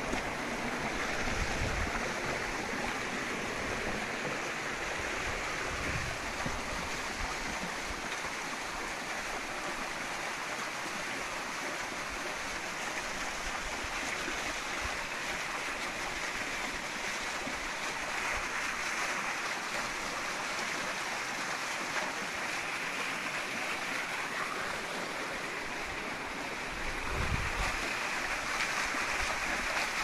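Small waterfall splashing down over rocks into a stream, a steady rush of falling water. A few brief low rumbles come through, the largest near the end.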